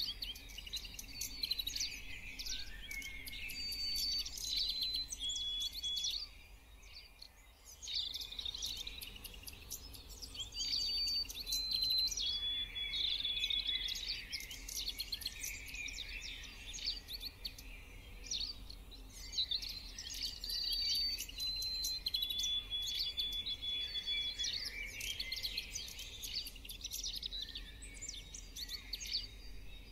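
Birds chirping and calling all through. A phrase of three whistled notes, each a step lower than the last, recurs about every eight to nine seconds.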